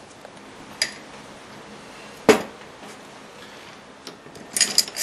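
A light click, then a sharp knock about two seconds in, then small metal tools clinking and rattling against each other near the end.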